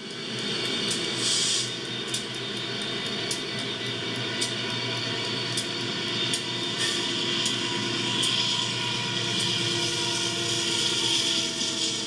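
CSX diesel-electric locomotives passing close by at speed, engines running with a steady drone, with sharp clicks about once a second.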